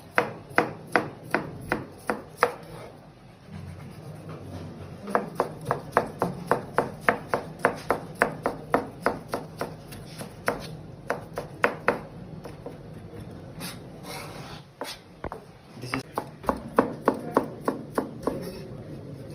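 Kitchen knife chopping on a cutting board in quick, even strokes, about three a second, in three runs with short pauses between them.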